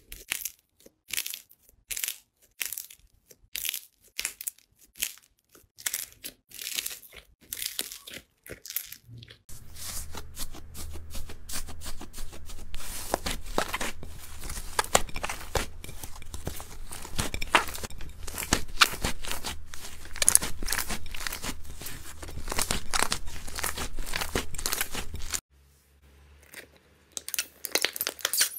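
Slime being squeezed and kneaded by hand. First comes a run of separate sharp pops and clicks about twice a second. From about a third of the way in there is a dense, steady crackling with a low hum beneath it, which stops suddenly near the end and gives way to a few more crackles as slime studded with cubes is squeezed.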